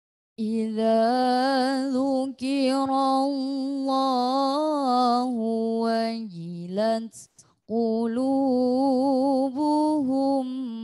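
A woman's voice reciting the Quran through a microphone in melodic tilawah style: long held notes that bend and waver in ornamented runs. There is a short break for breath about seven seconds in.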